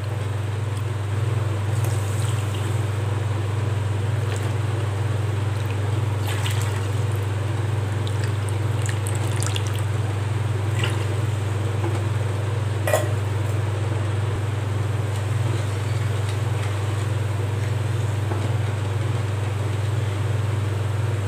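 Water poured from a bowl onto sugar in a nonstick pan, with a few light knocks, over a steady low hum.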